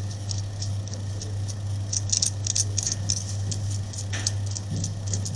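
Small screws being unscrewed from a body-camera magnetic mount: an irregular run of small clicks and squeaks from the screwdriver and screws, over a steady low hum.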